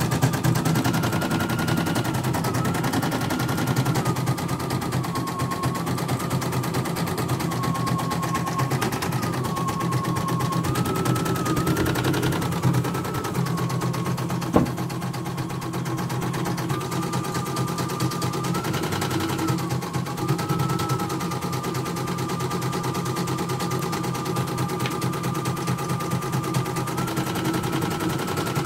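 CNY portable embroidery machine stitching a design: a rapid, even needle clatter with a motor whine that steps up and down in pitch several times. A single sharp click comes about halfway through.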